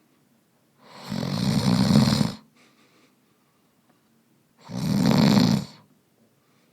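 A man snoring: two long snores about three and a half seconds apart, the first swelling over about a second and a half, with quiet pauses between them.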